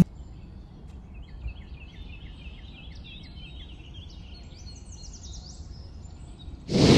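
Birds chirping softly in a steady run of short, repeated calls over a low background hum. A loud whoosh comes near the end.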